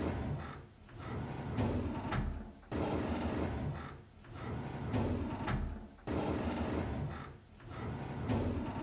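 A drawer being pulled open, a rattling slide that starts abruptly and tapers off, repeated about every three and a third seconds.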